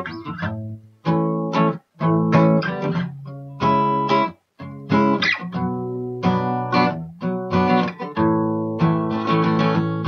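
Acoustic guitar strummed in chords, the strumming stopping dead briefly a few times.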